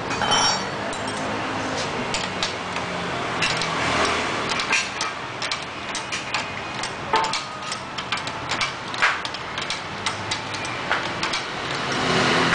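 Irregular light metallic clicks and taps of a pedal being threaded onto a bicycle pedal crank and tightened with a 15 mm wrench.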